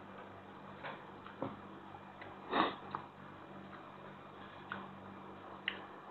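Eating instant noodles with thin metal chopsticks: scattered light clicks of the chopsticks against the plate, and one louder short sniff about two and a half seconds in, over a low steady hum.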